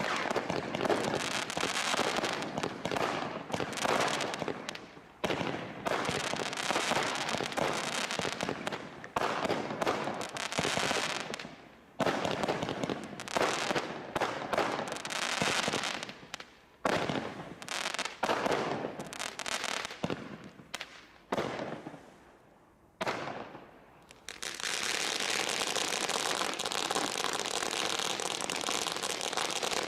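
Bright Star Desert Storm Crate firework barrage firing, a rapid run of shots and crackling with short pauses between sections. About 24 seconds in, the barrage stops and a steady noise carries on to the end.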